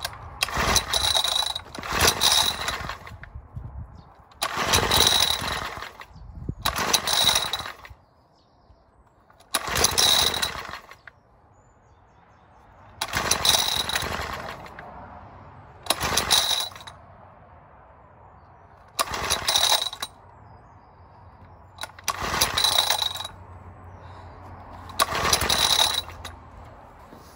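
Small 50cc BSA engine being pull-started by its recoil cord, about ten pulls a few seconds apart, each a second-long burst of the engine turning over that never catches and runs. The engine is not firing, which the owner puts down to a blocked carburettor jet.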